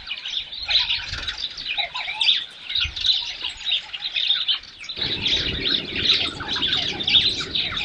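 A dense chorus of many small birds chirping, short overlapping calls with no pause. A low rumbling noise joins about five seconds in.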